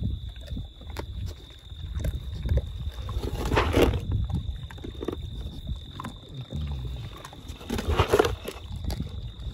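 A group of peccaries feeding close by, with low rumbling feeding noise and two short louder noises about four seconds apart. A steady high tone runs underneath.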